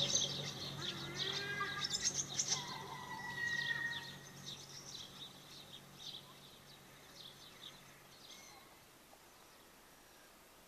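Birds chirping and calling in quick high twitters and a few gliding notes, over a low steady hum. All of it fades away after about four seconds.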